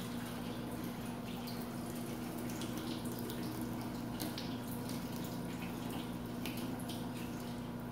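Rice being rinsed by hand in a pot with tap water: water running and splashing, with irregular drips and sloshes.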